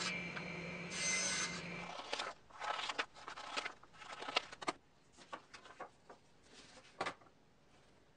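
Paper drawings being cut out: a run of short scraping, rustling cuts for a few seconds, then a few faint clicks.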